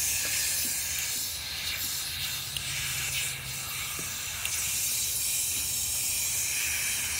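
Water spraying from a garden hose onto a dog being washed, a steady hiss.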